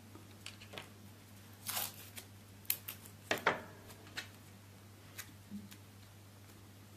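Masking tape being torn off in short pieces and wrapped around a wire wing frame: a brief tearing rasp, crinkling paper and a few small clicks and taps.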